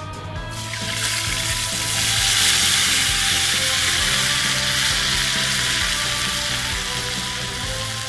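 Canned beans poured into a hot frying pan over a campfire, sizzling hard. The sizzle comes in suddenly about half a second in, swells over the next two seconds, then slowly dies down.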